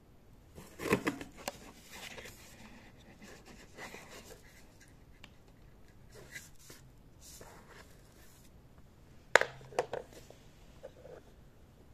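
Handling noises from a plastic TV remote control being taken out of its cardboard box: light rubbing and rustling, with a sharp knock about a second in. A louder knock and a few quick rattles come about nine seconds in, as the remote is set down on a wooden table.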